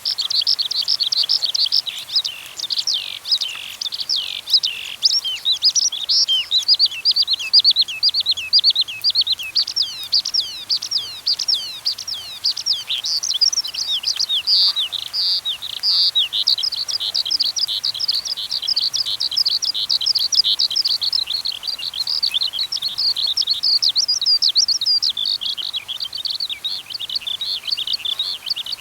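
A chorus of many small songbirds chirping and twittering at once, a dense, unbroken stream of quick, high, overlapping chirps with no pause.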